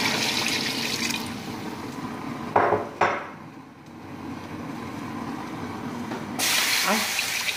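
Water running and splashing, easing off about a second in. Two short clanks come close together near the middle, and the water runs again, louder, near the end.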